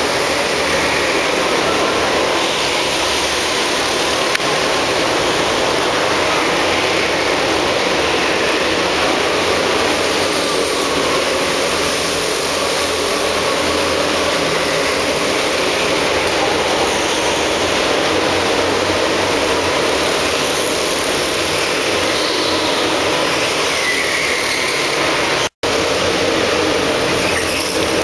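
Several go-kart engines running as karts lap an indoor track, a steady dense din. The sound cuts out completely for a split second near the end.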